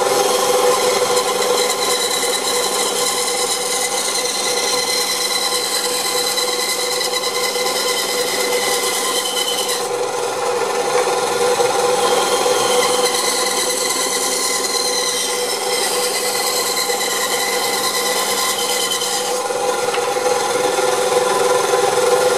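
Homemade 8-inch band saw running and resawing a softwood block of two-by lumber about 12 cm tall, the blade ripping through the wood with a steady motor hum underneath. Two cuts are made, the sawing noise changing as each cut ends, about ten seconds in and again near nineteen seconds; the saw cuts through without difficulty.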